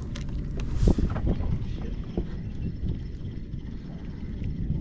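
Wind buffeting the microphone, a steady low rumble, with a few sharp clicks and knocks in the first second or so.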